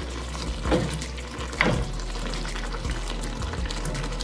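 Thick tomato-and-chile salsa simmering in an enamelled cast-iron pot with a steady low sizzle, while a wooden spoon stirs it in slow strokes, two soft scrapes about a second apart.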